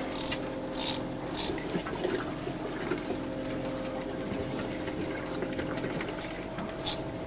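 A boat's motor drones steadily under water trickling and splashing on the deck, with a few light ticks and knocks.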